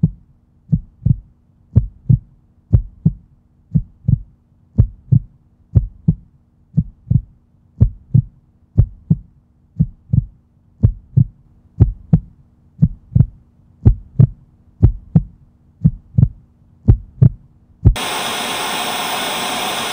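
Heartbeat sound effect: paired low thumps, lub-dub, about once a second. Near the end it gives way to about two seconds of loud, even static-like hiss that cuts off suddenly.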